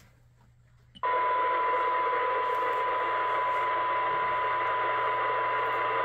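Radio receiver's squelch opening about a second in, its speaker then giving a steady 1 kHz test tone over hiss: a weak test signal right at the receiver's threshold.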